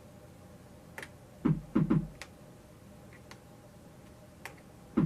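Modal Skulpt synthesizer playing a drum preset: short, deep hits that drop quickly in pitch, three in quick succession about a third of the way in and two more near the end, among a few sharp, dry clicks.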